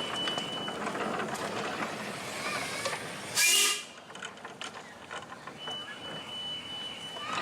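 Miniature railway steam locomotive's whistle giving a high, steady, pure tone, which stops about a second in and sounds again for about two seconds near the end. A short, sharp loud blast comes midway, over a steady hiss.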